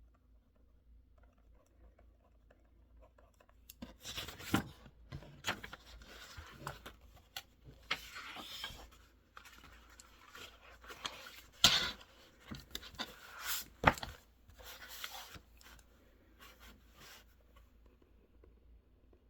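Desk-work sounds of someone studying: irregular scratching and rustling, as of writing and handling paper, starting about four seconds in and lasting some eleven seconds, with two sharp taps near the end of it.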